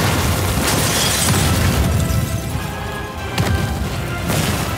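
Explosion sound effect: a heavy blast and its rumbling aftermath for the first couple of seconds, then two sharp hits near the end, all over dramatic background music.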